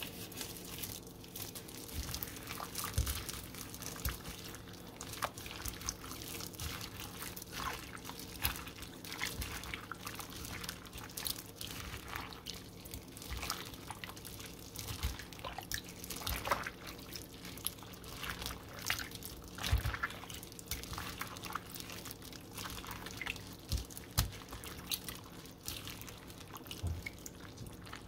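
Raw liver and pork being mixed in a soy-sauce-and-lemon marinade: irregular wet squishing and sloshing.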